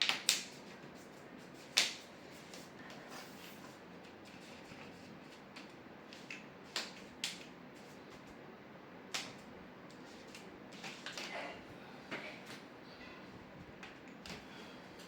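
Sporadic sharp clicks and taps with brief scraping, from plastic TV backlight parts being handled and pressed into place as the LED lenses are checked and seated in their holders.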